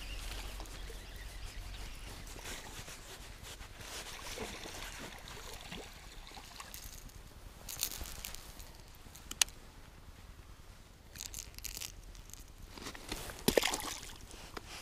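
A perch being reeled in and swung out of the river: faint water splashing and a few sharp clicks, then footsteps crunching on loose stones near the end.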